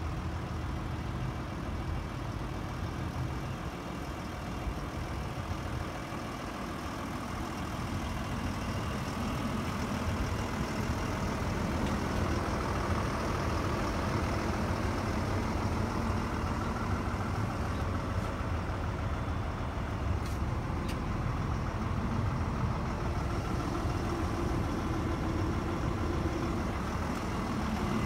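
Diesel engine of a Volvo EC220EL excavator idling steadily, growing slowly louder over the first ten seconds or so.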